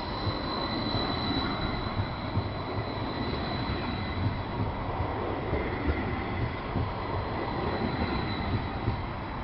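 Edinburgh Trams CAF Urbos 3 light-rail tram running past close by: a steady rumble of wheels on rail with a thin, high, steady whine held above it.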